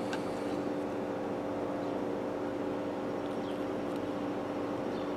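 Steady background hum with a couple of faint held tones in it. Just after the start there is a faint click as the smartwatch's back cover is handled, and faint small ticks follow later.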